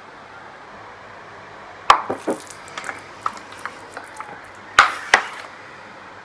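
Water splashed onto bare skin, a string of sharp wet splats: a cluster about two seconds in, smaller ones after, and the two loudest about five seconds in.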